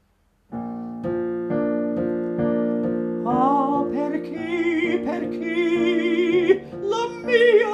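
Digital piano playing an introduction of held chords, joined about three seconds in by an older man's operatic singing voice with a wide vibrato, the start of an Italian song.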